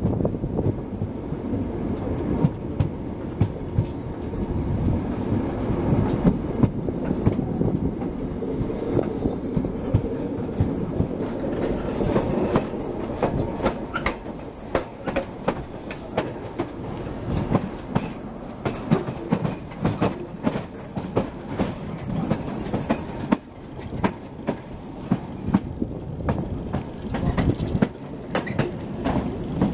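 Rumble of a passenger train rolling slowly on curved track, heard on board, its wheels clattering irregularly over rail joints and pointwork, the clatter growing busier about halfway through as the train crosses the station approach.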